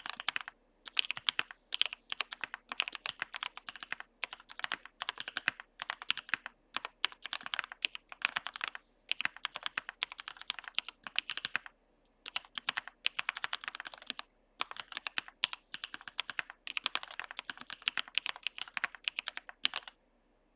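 Fast typing on the Cornelius v2 prototype mechanical keyboard with H1 switches lubed with Krytox 205g0: runs of quick keystrokes broken by short pauses. The typing stops just before the end.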